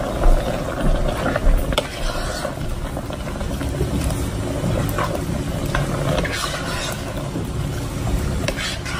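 A plastic spoon stirring fresh spinach into a pot of soup: scraping and sloshing, with short knocks of the spoon against the pot, over a steady low rumble.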